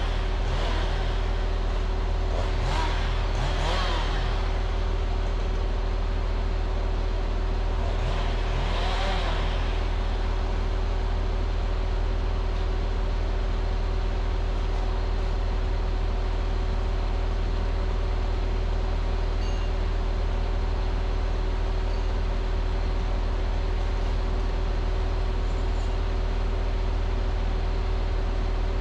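Diesel engine of a converted Rottne H20 winch machine running steadily, with a constant hum over it. A few brief rises and falls in pitch come in the first ten seconds.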